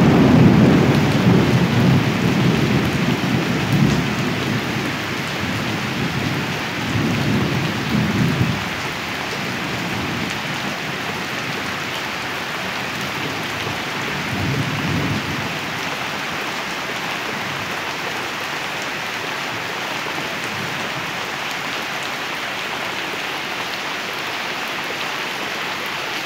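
Rain falling steadily with rolling thunder: a loud rumble at the start that fades over several seconds, another rumble about seven seconds in, and a fainter one about fourteen seconds in.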